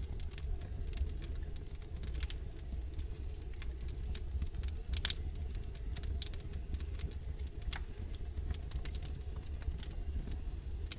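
Wood fire burning in a fireplace: irregular crackles and pops from the logs over a steady low rumble, with one sharper pop about five seconds in.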